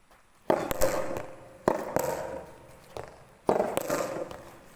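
Soft tennis rally: a racket striking the rubber ball with a sharp smack about every one to two seconds, three hits here, each followed by an echoing tail.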